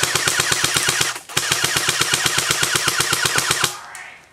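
Airsoft rifle firing on full auto: a rapid, even stream of shots in two long bursts, with a short break about a second in, stopping shortly before the end.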